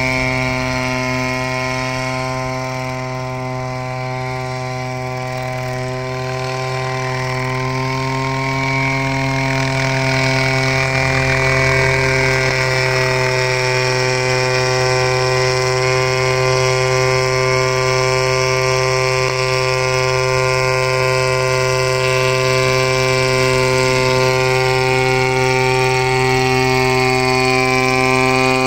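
Small unmanned crop-spraying helicopter in flight: a steady engine and rotor hum with a strong pitched tone, growing louder after the first few seconds as it comes closer and then holding steady.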